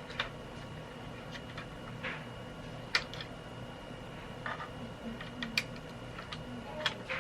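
Hard plastic parts of a large Unicron action figure being handled and folded into place: scattered clicks and knocks, the sharpest about three seconds in and near the end, over a faint steady hum.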